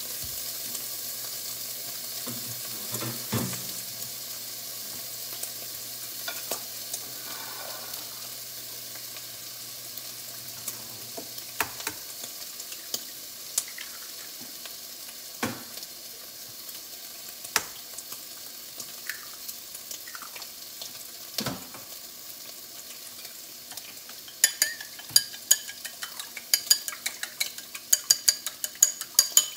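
Food sizzling in a frying pan, a steady hiss that slowly dies down, with occasional single knocks of utensils. About twenty-four seconds in, a fast clicking starts as chopsticks beat eggs in a bowl.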